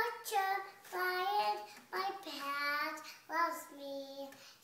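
A young child singing in a high voice, in about four short phrases with held notes that glide up and down.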